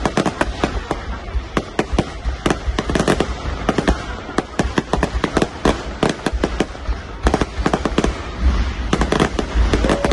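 Fireworks display: rapid, irregular bangs and crackles, several a second, over a low rumble.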